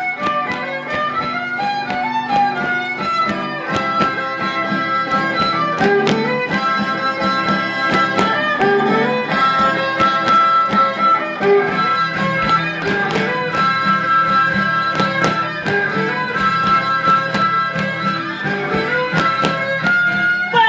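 Traditional dance music on violin and guitar: a sustained violin melody over steady strummed guitar strokes.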